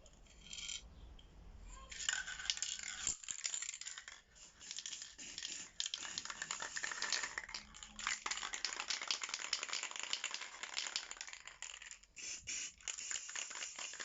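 Paint being worked onto a washing machine's front panel: a scratchy, crackly rubbing noise that starts about two seconds in and runs in long strokes with short breaks.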